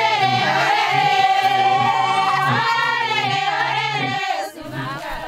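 A group of voices singing together, with one long held note partway through; the singing stops about four and a half seconds in.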